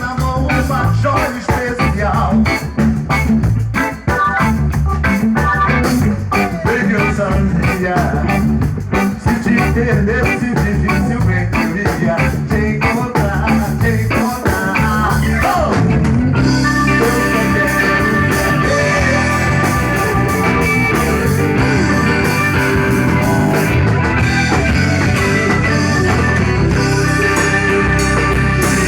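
Reggae band playing an instrumental stretch of the song with bass, drums and offbeat rhythm. About sixteen seconds in, the sound fills out with long held high notes over the groove.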